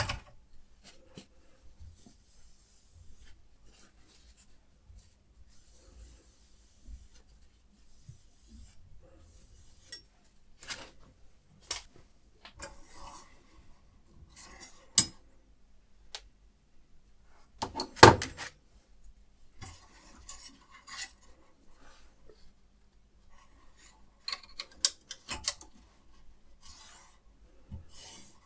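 Scattered metallic clicks and clinks from a guided knife sharpening system being handled, with a few short stretches of light rubbing. One knock about 18 seconds in is the loudest.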